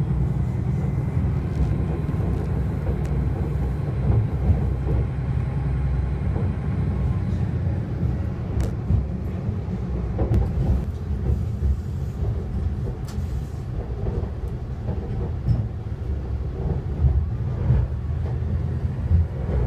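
AT-400 diesel railcar running and rolling over the station's pointwork, heard from inside the car: a steady low engine and running rumble with occasional sharp wheel clicks over rail joints and switches.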